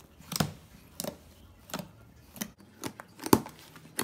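Fluffy PVA-glue and borax slime, still slightly sticky, being kneaded by hand in a plastic tub: a string of short sticky squelches and tearing pops, about one every half second, the loudest a little after three seconds in.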